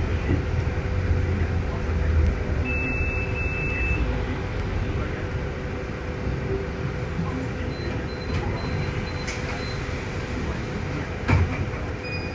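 Inside a city bus as it drives: steady engine and road noise with a low hum. A few faint short high beeps come in about eight seconds in, and there is a single sharp knock near the end.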